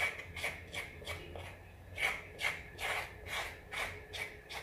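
Handheld vegetable peeler scraping down a raw carrot, taking off the skin in repeated short strokes, about two or three a second.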